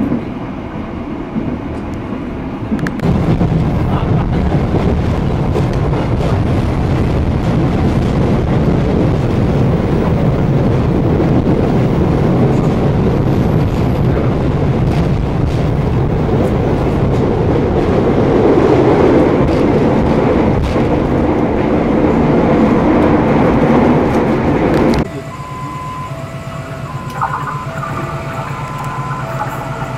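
Passenger train carriage running along the rails, a steady rumble of wheels and coach noise that grows louder about three seconds in. Near the end it drops suddenly to a quieter scene with a repeating two-note beeping tone.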